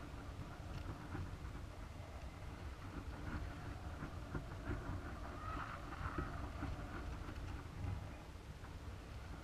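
Low, muffled rumble with scattered small knocks and rattles, picked up by the camera riding in a high-altitude weather balloon's swaying payload box.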